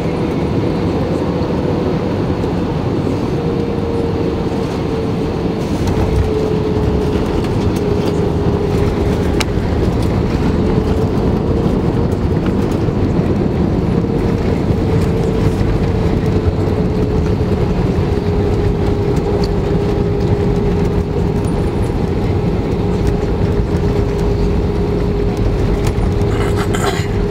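Cabin noise of an Airbus A320-216 on its landing roll, heard from a window seat over the wing: a loud, steady rumble of the engines and the wheels on the runway, with a steady hum drifting slowly lower in pitch as the jet slows. The noise grows a little louder about six seconds in.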